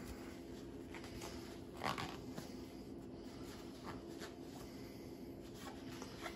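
Light clicks and rustles of small parts of a CD changer's mechanism being handled, with one louder scrape about two seconds in, over a low steady hum.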